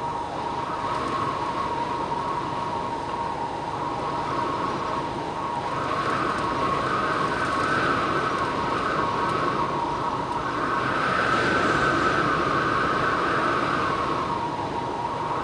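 Storm-force wind howling, with a steady whistling tone and a second, higher whistle swelling in about six seconds in and fading near the end.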